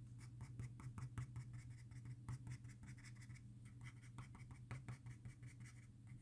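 Soft graphite pencil scratching faintly on drawing paper in quick, short, irregular strokes as fur hairs are drawn with the pencil's point, over a low steady hum.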